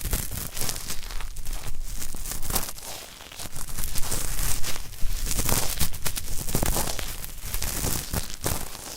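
Ear cleaning: an ear pick or cotton swab scratching and scraping at earwax close to the microphone, crackly, in irregular strokes with a brief lull about three seconds in.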